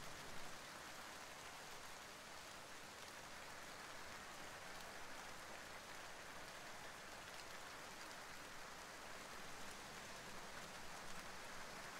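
Faint steady hiss with no distinct events.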